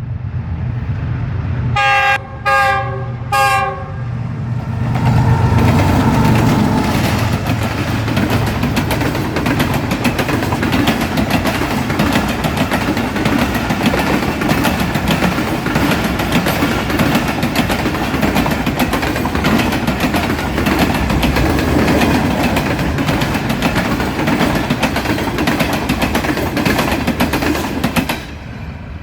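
GEU-40 diesel locomotive's horn sounding three short blasts, then the Karakoram Express train passing at speed: a steady rush of wheels clattering over the track that drops away near the end.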